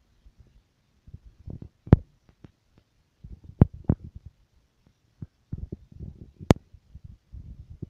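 Handling noise from a hand-held camera being moved: irregular low rumbles with scattered sharp clicks, the loudest about two seconds in, twice around three and a half to four seconds in, and once more past six seconds.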